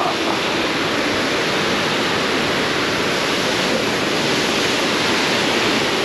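Wapta Falls on the Kicking Horse River, a steady rush of falling water heard close to the base of the falls.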